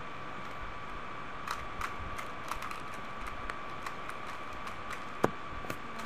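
Rubik's cube being turned fast in the hands: a scatter of quick, light plastic clicks over a steady faint whine. A single sharp knock about five seconds in is the loudest sound.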